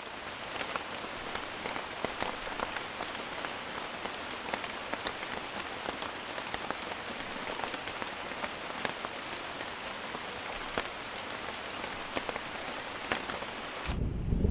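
Rain falling on rainforest vegetation: a dense steady hiss with many individual drops clicking on leaves, and a faint high thin tone that comes and goes twice. Near the end it cuts abruptly to a deep low rumble of thunder under the rain.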